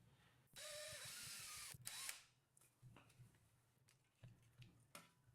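A small electric drill with a tiny bit runs faintly for about a second, with a slightly rising whine, to mark a hole. A couple of clicks follow, then faint light handling ticks.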